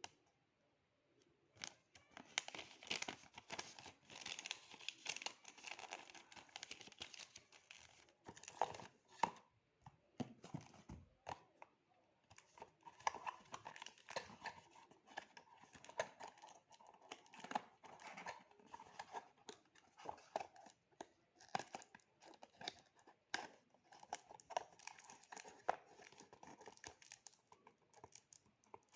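Parcel packaging being torn open and crinkled by hand: irregular rustling and ripping, with a short lull about ten seconds in.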